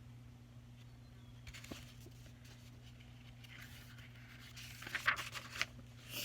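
Paper rustling and crackling as the page of a picture book is handled and turned: a soft rustle about a second and a half in, then a cluster of sharper crackles near the end, over a faint steady hum.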